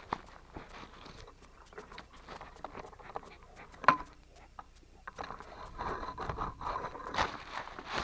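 Grass and leaves rustling and scraping against a camera strapped to a moving dog, with the dog's footsteps and a sharp knock about four seconds in.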